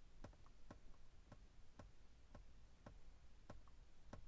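Faint clicks of a BMW F30's instrument-cluster reset button being short-pressed over and over, about two presses a second; each press steps the hidden-menu unlock code up by one.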